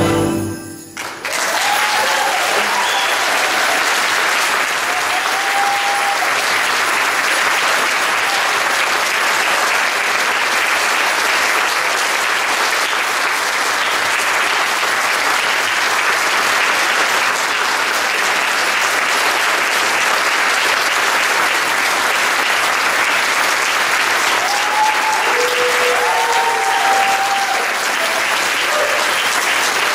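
A choir's final chord cuts off about half a second in, then the audience applauds: sustained, dense clapping at a steady level.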